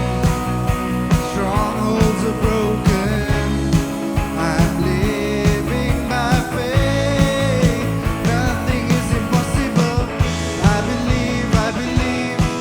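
A worship band playing a contemporary praise song, with a steady drum beat and full bass under a wavering melody line.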